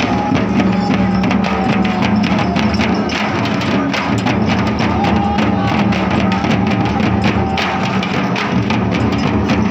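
Several large frame drums beaten with sticks together in a fast, dense, unbroken rhythm.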